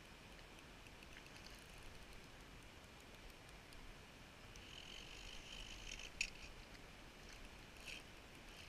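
Faint buzz of the Okuma SLV fly reel as line is pulled from it during the fight with a steelhead. The buzz lasts about a second and a half and ends in a sharp click, with another short click near the end.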